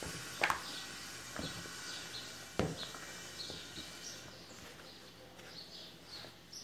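A few light knocks and clatters from stirring panettone dough with dried fruit in a mixing bowl, with faint bird chirps in the background in the second half.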